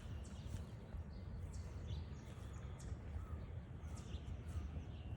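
Wild birds giving many short, high chirps and calls over a steady low rumble.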